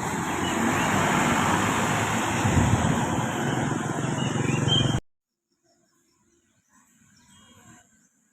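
A road vehicle passing close by, a loud steady rush of engine and tyre noise that cuts off abruptly about five seconds in, leaving only faint background sounds.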